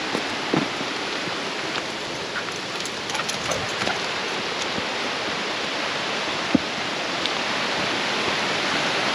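Steady rushing of the Rose River, a mountain stream swollen by rain, growing a little louder toward the end. A few short knocks stand out, the sharpest about two-thirds of the way through.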